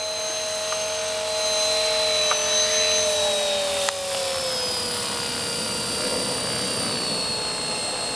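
Radio-controlled model helicopter's motor and main rotor whining steadily. The pitch slides gradually lower a few seconds in as the rotor slows, then holds level.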